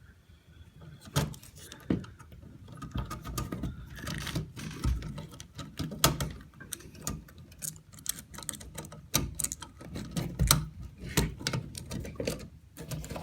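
Hands working the house wiring out of a ceiling electrical box: irregular clicks, taps and knocks with rustling and scraping, several sharper knocks standing out.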